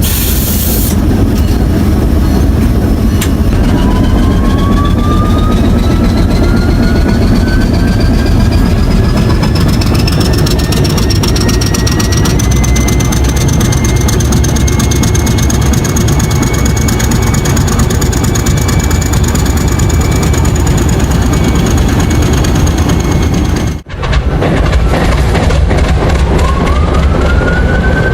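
Large engine starting up with a heavy rumble, while a whine climbs steadily in pitch over about ten seconds as it spools up, then holds steady. After a brief break another start begins, its whine rising again near the end.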